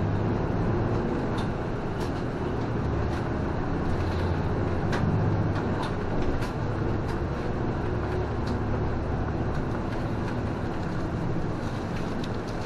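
City bus driving along, heard from inside the cab: a steady engine hum and road noise with the engine pitch shifting as it drives, and scattered short clicks and rattles.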